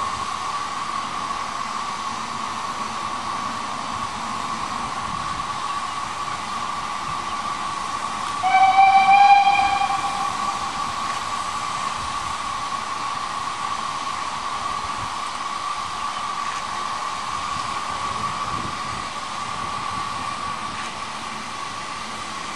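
Shay geared steam locomotive blowing its steam whistle once, a short blast of about a second and a half roughly a third of the way in, over a steady high hum that runs throughout.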